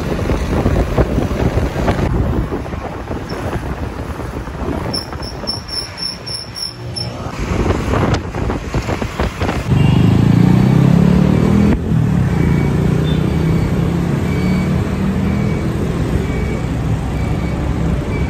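Engine and road noise of a vehicle riding through city traffic, a steady rumble; about ten seconds in an engine hum grows louder and rises slightly in pitch as it speeds up. A short run of high beeps sounds in the middle.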